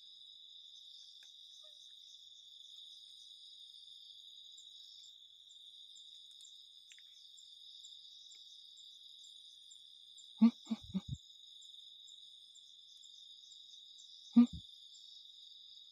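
Crickets and other insects chirring steadily. About ten seconds in there is a quick cluster of three or four knocks, and near the end a single sharp knock; these are the loudest sounds.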